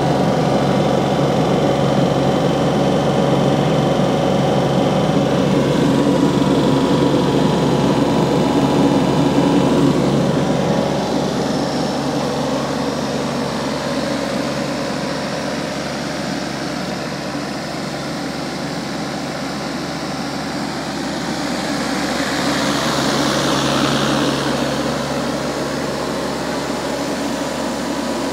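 Denyo 18 kVA silent diesel generator set, its three-cylinder diesel engine running steadily. The hum is a little louder in the first third, and a rushing hiss swells briefly about three quarters of the way through.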